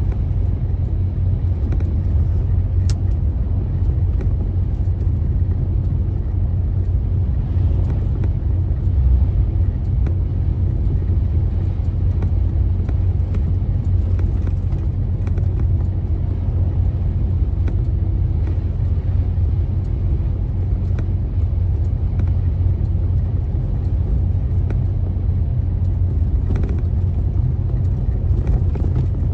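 Steady low rumble of engine and tyre noise from a vehicle driving along the highway, heard from inside the cabin, with a faint steady hum over it.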